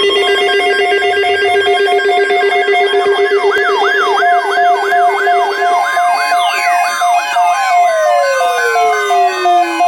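Several weather alert radios and alarm devices going off at once at the start of a tornado watch alert. Steady alert tones sound together, joined about three seconds in by a rapidly repeating siren-like sweep, two or three a second, and near the end by a long falling wail.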